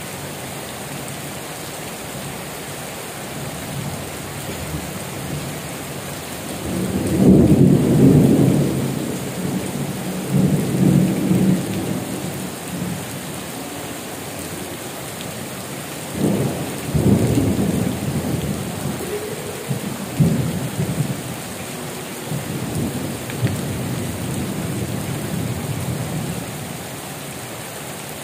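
Heavy rain falling steadily. Thunder rumbles in two long rolls, the first starting about seven seconds in and the second around sixteen seconds, each fading out over several seconds.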